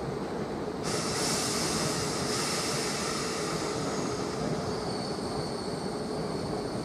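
South West Trains suburban electric multiple unit running past at the station, a steady rumble of wheels on rail. About a second in a high hiss rises sharply, and later thin high-pitched wheel squeal tones come through.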